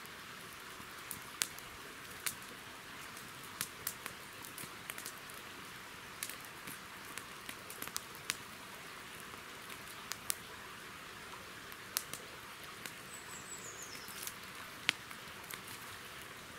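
Wood campfire crackling, with irregular sharp pops and snaps over a steady hiss. A bird gives a short falling chirp about three-quarters of the way through.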